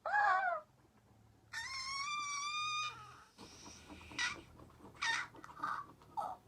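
Chickens calling: a short wavering call, then a rooster's held crow of about a second and a half, then several short clucks.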